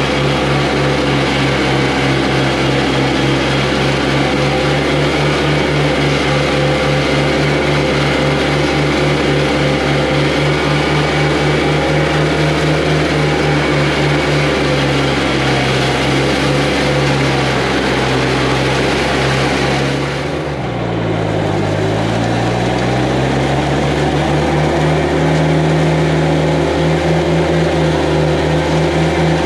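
Straw bale mulcher running steadily, shredding straw and blowing it out through its hose with a fast fluttering beat from the machine. About twenty seconds in, the engine speed sags under the load and then recovers.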